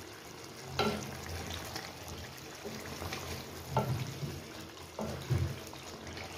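Wooden spoon stirring chicken karahi in a metal pot, over a steady sizzle of the simmering curry, with a few sharp knocks of the spoon against the pot.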